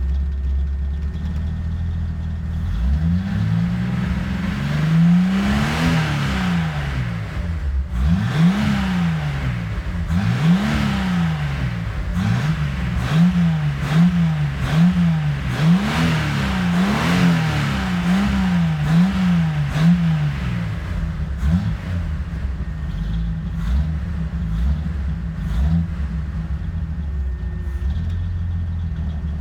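Datsun 260Z's 2.6-litre straight-six on dual Weber carburettors, warmed up, idling and then blipped through a string of free revs that rise and fall quickly, about one a second in the middle, before it settles back to a steady idle.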